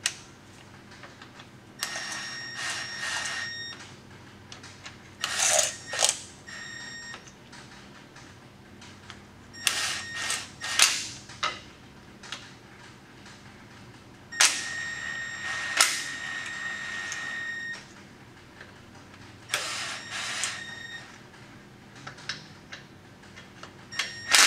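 Cordless power driver spinning a socket to run down the nuts on a rear brake backing plate: about six short runs of steady motor whine, the longest about three seconds, with a few sharp clicks among them.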